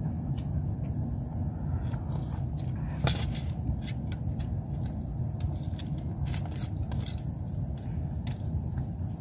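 Spoons clicking and scraping in plastic bowls as two people eat, over a steady low rumble. A sharper click comes about three seconds in.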